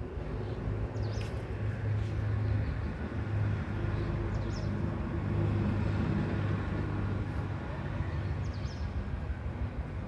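Low engine rumble of a passing vehicle, swelling through the middle and easing off, with three short high bird chirps: about a second in, midway, and near the end.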